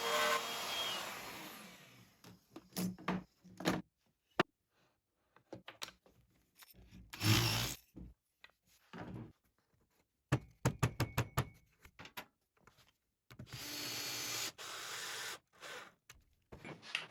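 Woodworking bench sounds as parts and tools are handled: scattered knocks and clicks on wood, a quick run of clicks about two-thirds of the way in, and a steady noise lasting about two seconds near the end.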